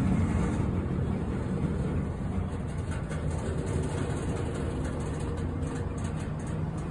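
Freight train of double-stack container well cars rolling past close by, a steady low rumble of wheels on rail with a faint steady tone joining about halfway through.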